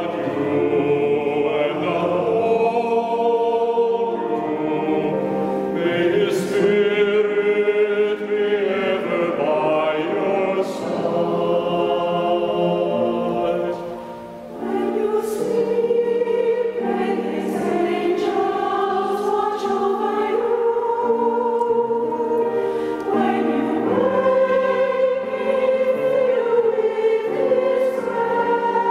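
Mixed choir singing a choral piece in several parts in a large stone cathedral, with long held notes and one short pause between phrases about halfway through.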